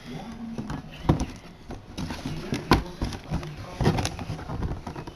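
Cardboard box being handled and opened: a handful of sharp knocks and thumps with rustling between them.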